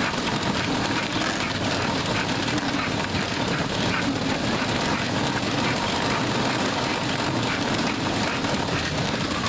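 Dog trotter treadmill running steadily under a trotting bulldog: a continuous rattling rumble that does not change.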